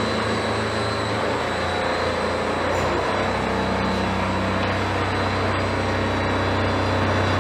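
Electric drive motor of a converted car, run through a variable frequency drive, spinning a raised road wheel: a steady hum with a thin high whine over the noise of the turning wheel and drivetrain.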